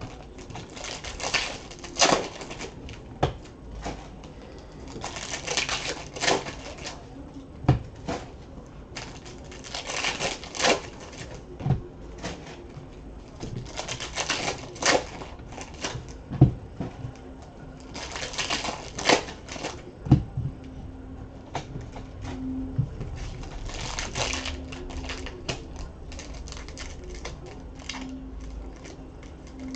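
Foil trading-card pack wrappers crinkling and tearing as packs are ripped open, in bursts every few seconds. Between the bursts come clicks and taps of cards being handled on the table.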